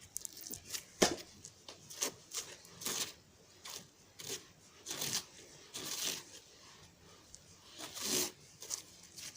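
Hands kneading and pulling apart a stiff slime, giving irregular sticky tearing and crackling sounds, one or two a second, as it is worked soft enough to stretch.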